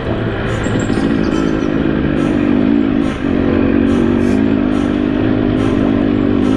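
Two-stroke enduro dirt bike engine running under throttle along a trail, its pitch rising and falling with the terrain, with a brief drop in revs about three seconds in.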